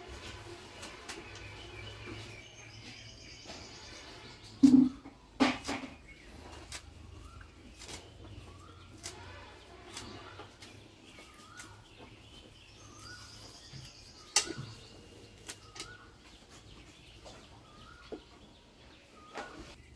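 Small birds chirping, short rising calls repeated about once a second with higher trilling song at times. A few sharp clicks and two louder knocks stand out, the loudest about five seconds in.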